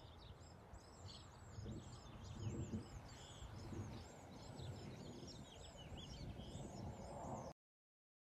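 Many small birds chirping in quick repeated arching calls over a low wind rumble on the microphone; the sound cuts out suddenly near the end.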